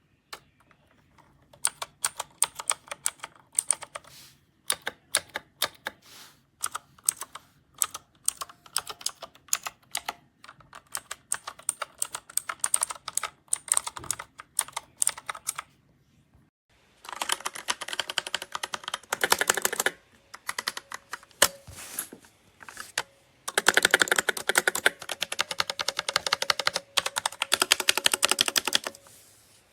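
Typing on a MageGee 75% mechanical keyboard with red (linear) switches. It starts as scattered single keystrokes, then turns into two bursts of rapid, continuous typing in the second half.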